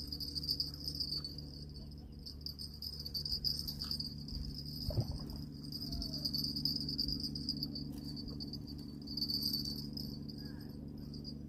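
A chorus of insects shrilling, with a continuous high, slightly pulsing trill, over a steady low hum and a few faint knocks.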